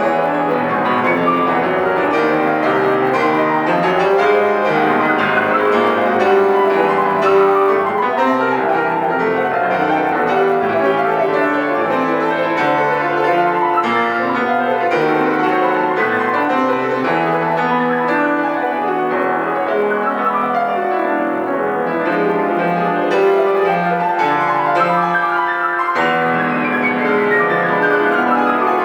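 Solo acoustic piano playing classical music, with fast running scale and arpeggio passages sweeping up and down the keyboard.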